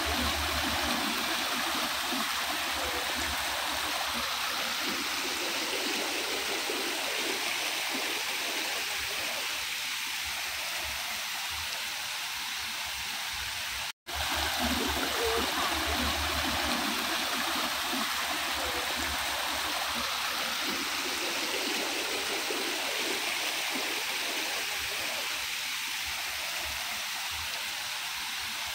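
Water running steadily in a small stream, splashing down a short cascade between mossy rocks with a constant rushing sound. It cuts out for an instant about halfway through, then resumes the same.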